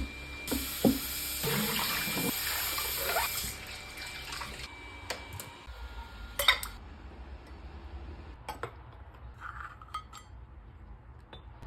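Water running and splashing for about three seconds, then quieter handling with scattered knocks and clicks.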